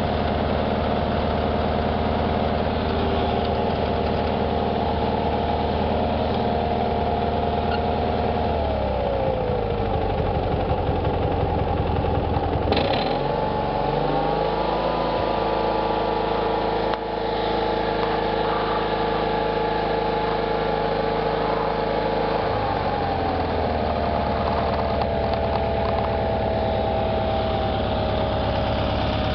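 Cub Cadet 782 garden tractor's Kohler engine running. Its speed dips about a third of the way in, then picks up to a faster steady run, and falls back to its earlier speed near the end. A sharp click comes as the speed picks up.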